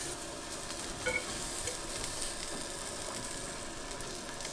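Crayfish tails sizzling in a frying pan, a steady hiss, with a light tap about a second in.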